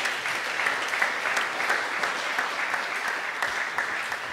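An audience clapping steadily, thinning slightly near the end.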